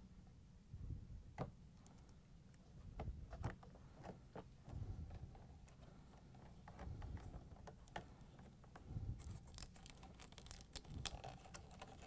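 Faint clicks and rustles of hands handling flat ribbon cables and pressing their connectors onto a dishwasher control board in a plastic control panel, with soft low thumps now and then. The clicks come thicker from about nine seconds in.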